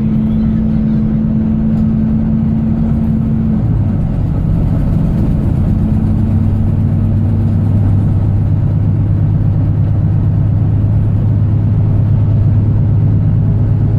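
Diesel engine of a Volvo B9TL double-decker bus running, heard on board. Its pitch drops a little under a third of the way in, and it then runs on steadily at the lower note.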